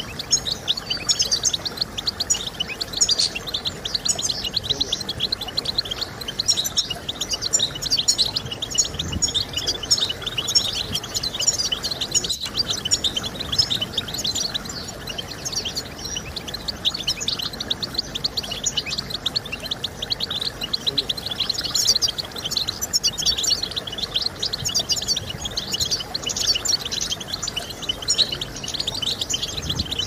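European goldfinch song: a continuous, rapid twittering of high, quick chirps and trills.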